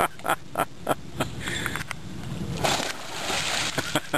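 Water splashing in a quick rhythm, about three splashes a second, with a longer rush of water noise about two and a half seconds in.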